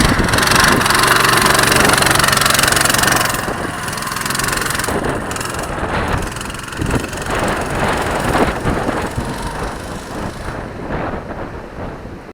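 Coleman CT200U-EX minibike's small single-cylinder engine revving as the bike pulls away, loud for about three seconds and then fading steadily as it rides off.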